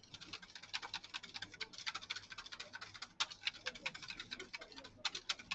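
Wire whisk beating a sabayon mixture of eggs, butter and olive oil in a stainless steel bowl: a fast, uneven run of clicks and scrapes of the wires against the metal, with brief pauses a little after three seconds and near the end.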